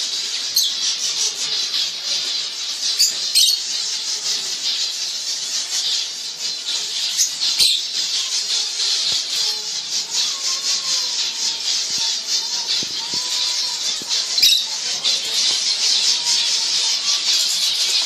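A flock of small cage finches, European goldfinches, zebra finches and canaries, chirping and twittering together in a dense, continuous high chatter, with a few sharp clicks.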